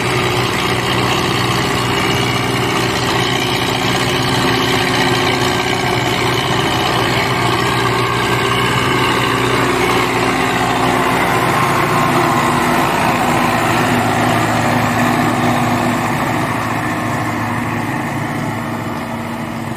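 Belarus 510 tractor's diesel engine running steadily under load as it hauls a heavily laden sugarcane trolley past, easing off slightly near the end.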